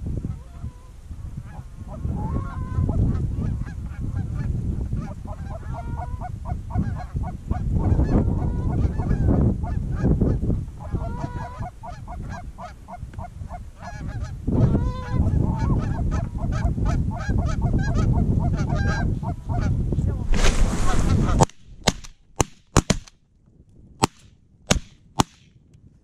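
Canada geese honking and clucking in quick, repeated calls over a low wind rumble on the microphone. Near the end a loud burst comes, then the rumble drops away and a string of sharp cracks follows over near quiet.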